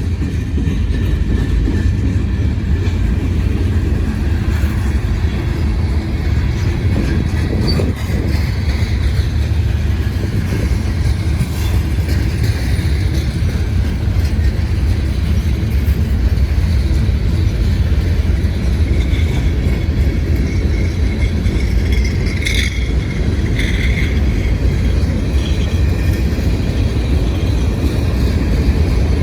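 Freight train cars rolling past close by: a steady, heavy rumble of steel wheels on the rails, with a couple of short, high metallic sounds about three-quarters of the way through.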